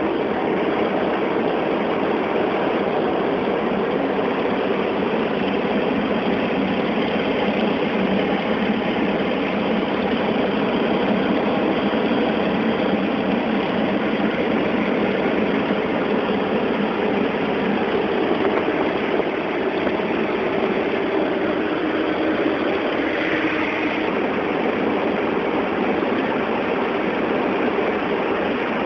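Nanchang CJ-6's nine-cylinder radial engine and propeller running steadily, heard from inside the cockpit as a dense, even drone.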